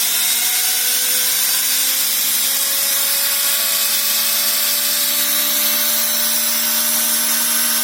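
Restored washing-machine commutator motor running on a test stand. It gives a loud, steady whine with brush hiss, and its pitch creeps slowly upward. The new brushes are still bedding in to the commutator and spark a little.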